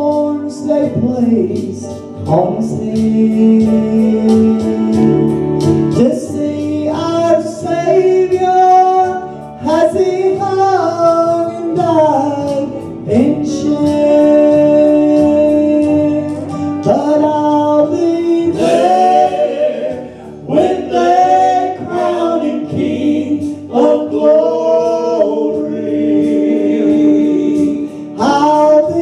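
A gospel song being sung, with long held notes.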